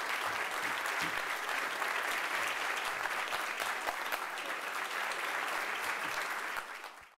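Large audience applauding, many hands clapping in a dense, steady patter that fades out quickly near the end.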